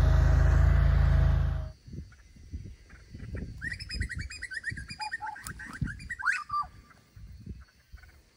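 A steady motor drone cuts off abruptly just under two seconds in. Then birds call: a quick run of repeated chirping notes ending in a few falling calls, over faint low thumps.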